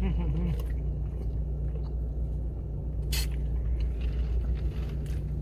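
Chewing and mouth sounds of someone eating, over a steady low hum inside a car, with one sharp click about three seconds in.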